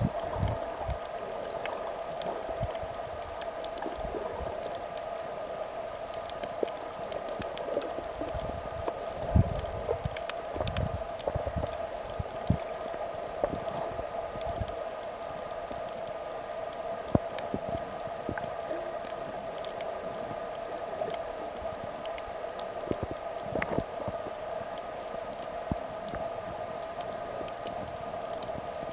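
Underwater reef ambience picked up by a submerged camera: a continuous crackle of fine clicks over a steady hum, with irregular low thuds of water moving against the housing.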